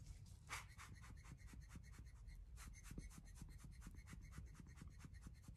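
Faint, rapid light tapping and scratching, several even ticks a second, over a low hum: a micro tool dabbing alcohol ink onto a hard art panel.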